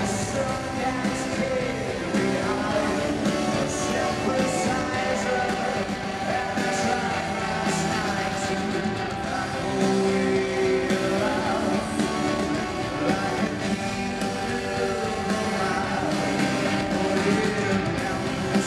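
Live rock band playing in an arena: drums, electric guitar and singing.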